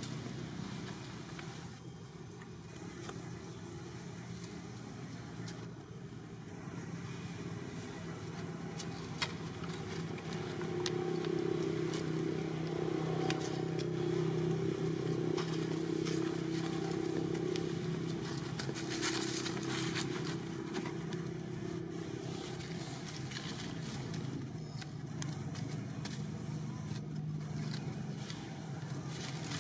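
A motor vehicle engine runs steadily nearby as a low, even hum that grows louder through the middle and then eases off. Scattered light crackles sound over it.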